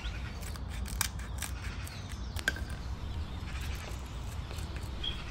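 Steel kitchen scissors snipping the fins and edges off a piece of dried fish: a few faint, sharp clicks, the clearest about a second in and about two and a half seconds in, over a low steady hum.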